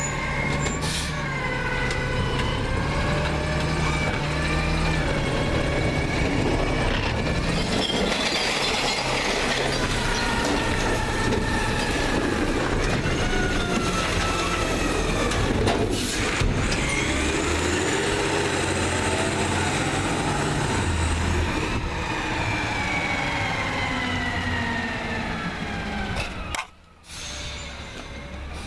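Peterbilt 320 garbage truck with its CNG engine running while its McNeilus ZR automated arm lifts and empties a curbside cart. A hydraulic whine rises and falls in pitch over the engine, with a sharp knock about halfway through. The sound cuts out briefly near the end.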